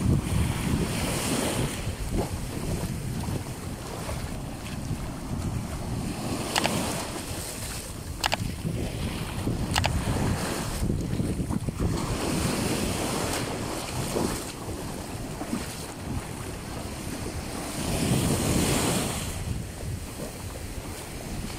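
Small surf waves washing up and running back over a sandy shore, with wind buffeting the microphone. The wash swells louder about a second in and again near the end.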